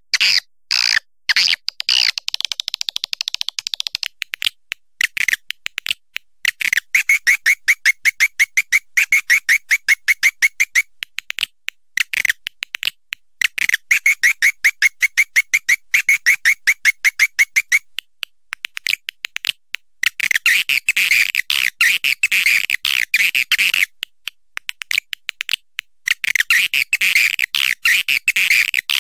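Swiftlets calling in rapid trains of sharp, even chirps, roughly eight a second, with stretches of busier, louder twittering near the end. This is the kind of swiftlet call played to draw the birds into a swiftlet house.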